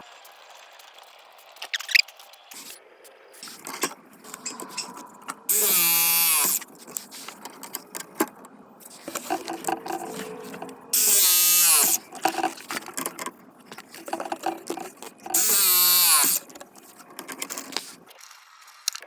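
A power tool's motor running in three short bursts of about a second each, with clicks and knocks of tool and pipe handling between them.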